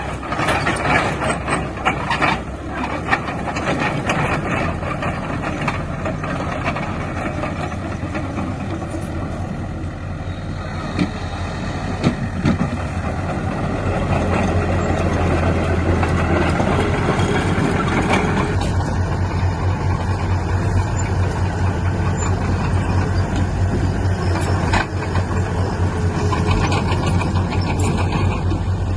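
Heavy diesel engine of a truck or bulldozer running with a steady low drone that grows louder about halfway through, with a few knocks near the start.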